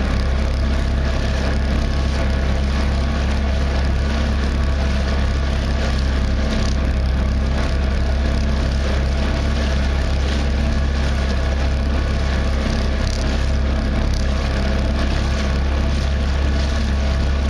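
Boat engine running steadily at cruising speed, with water and wind rushing past a fast-moving kayak.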